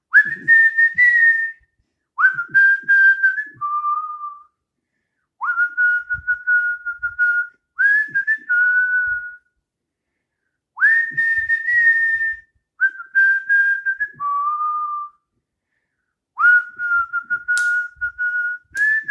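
A man whistling a slow tune by mouth, in phrases of held notes that each begin with a quick upward slide, with short pauses for breath between them. He whistles in place of a chorus he couldn't think of for his song.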